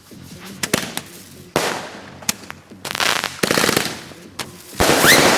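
A 42-shot consumer firework cake firing: sharp bangs and crackling bursts follow one another every second or so. A brief rising whistle sounds about five seconds in, and the loudest, densest crackle comes near the end.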